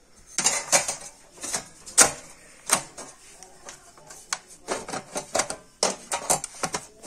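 Sheet-metal lid of a satellite set-top box receiver being fitted back onto its chassis by hand: a run of irregular clicks and knocks as the cover is worked into place.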